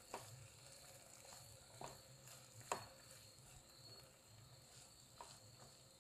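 A spatula stirring diced vegetables in a nonstick pan, tapping and scraping the pan four times, loudest nearly three seconds in, over a faint sizzle.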